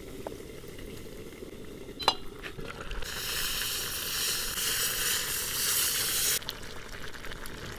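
Hot lard-and-flour roux with paprika sizzling as it is poured from a small pan into a cast-iron pot of boiling stew; the hiss starts about three seconds in and cuts off suddenly near the end. Before it, the roux is stirred quietly with a wooden spoon, with a single click about two seconds in.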